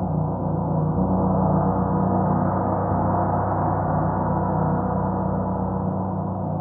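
Gongs ringing in a sustained, dense wash of overlapping tones, swelling a little a second or two in and then easing off slowly.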